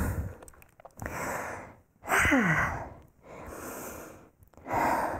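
A woman breathing deeply and audibly in and out, about one breath sound every second, catching her breath after exertion. The loudest breath, about two seconds in, is an exhale with a short falling voiced sigh in it.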